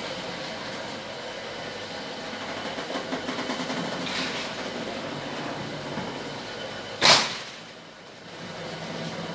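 Electric roller shutter door running, its side-mounted motor rolling the metal slats up onto the drum with a steady rattle, the door now moving freely after being unjammed. A single sharp bang about seven seconds in.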